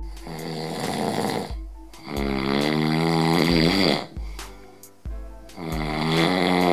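Loud human snoring: three long snores, each lasting one to two seconds, with short pauses between them, over background music with a low bass line.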